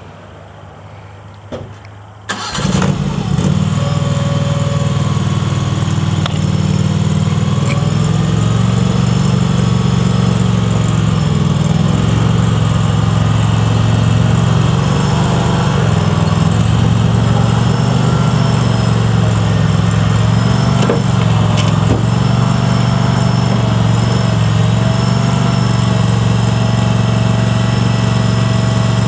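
Skid steer loader engine starting about two seconds in, then running steadily with a slight wavering of its pitch.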